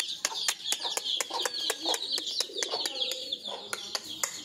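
A flock of pigeons and chickens at feed: constant high chirping, pigeons cooing, and many sharp taps of beaks pecking at the feed.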